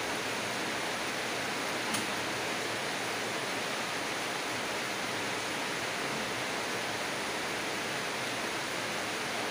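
Steady, even hiss of background noise, with one faint tick about two seconds in.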